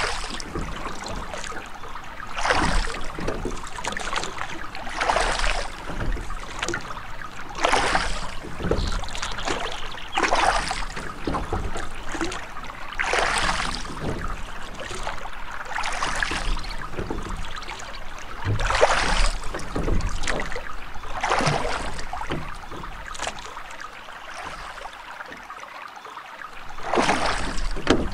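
Water lapping and splashing in repeated swells, about one every two and a half seconds.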